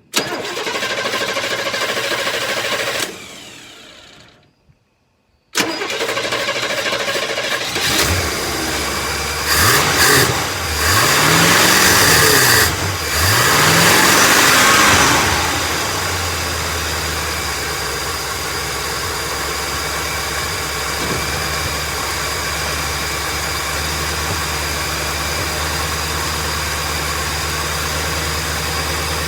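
Carbureted truck engine, with a freshly installed carburetor, turned over for about three seconds before dying away. It is cranked again about five seconds in, catches, is revved up and down a few times, and then settles into a steady idle.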